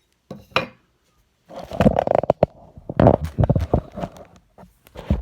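Hard objects being handled and set down: a quick clatter, then a run of clinks and knocks for about three seconds.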